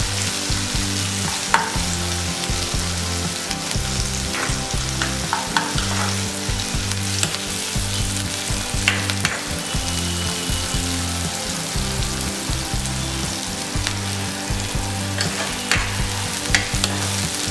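Diced onion and green capsicum sizzling in hot oil in a non-stick kadhai, stirred with a silicone spatula that scrapes and clicks against the pan now and then.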